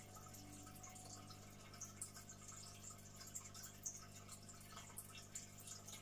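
Aquarium air stone bubbling: a stream of small bubbles breaking at the water surface with faint, irregular dripping ticks, over a low steady hum.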